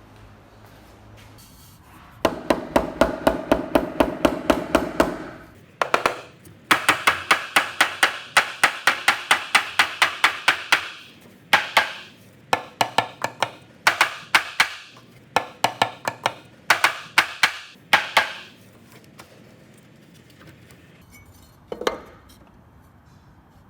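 Hammer blows on wood, struck in fast even runs of about four to five a second, each with a short ring. The runs break into shorter bursts, then stop, with one last blow near the end.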